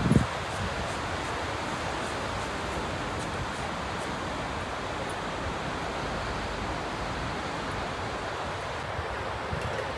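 Steady rushing noise of strong wind and distant ocean surf, even and unbroken.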